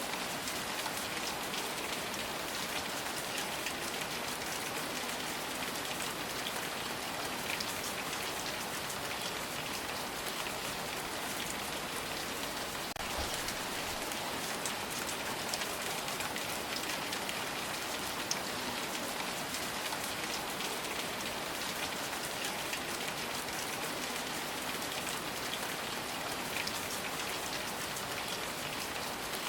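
Steady rain falling on a surface: an even hiss with scattered sharper drop ticks throughout.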